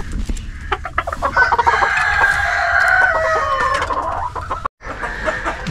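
Domestic chickens in a coop: a rooster crows in one long call lasting about two seconds, over hens clucking and scattered clicks. The sound cuts out briefly near the end.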